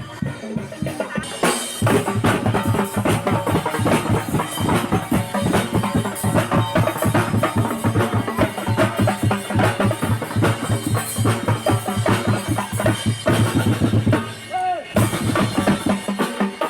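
Music driven by loud, fast drumming on bass and snare drums, with a short break near the end.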